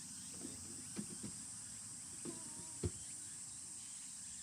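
Steady high-pitched insect chorus, with a few faint short knocks; the sharpest knock comes just before three seconds in.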